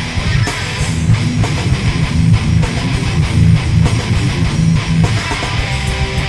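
Hard rock band playing live: loud distorted electric guitars over bass and drum kit.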